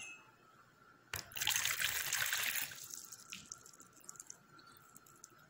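Water poured into a plastic mixing bowl: a light knock about a second in, then a pour of about a second and a half that tails off into a few drips.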